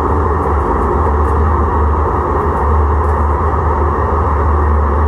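1983 Siemens-Duewag U2 light-rail car standing at the platform, giving off a loud, steady low hum with a rushing noise over it.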